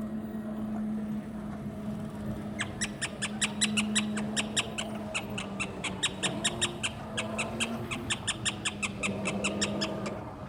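A small animal calling in a fast run of short high chirps, about five a second, starting a few seconds in and running for some seven seconds, over a steady low hum.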